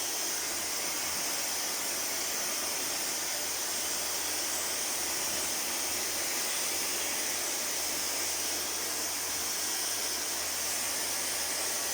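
Dyson Supersonic hair dryer blowing steadily: an even, high, rushing hiss that holds the same speed throughout.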